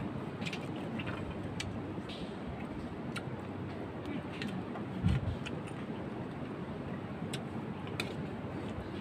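Metal spoons clinking against a metal cooking pot and metal plates as soup and rice are served: scattered light clinks over a steady low rumble, with one dull thump about five seconds in.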